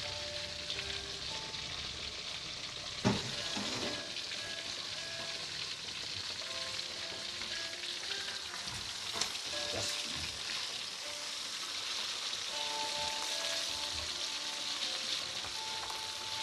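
Whole carp deep-frying in hot oil, a steady crackling sizzle as the fish crisps, with a sharp knock about three seconds in and a few softer knocks later.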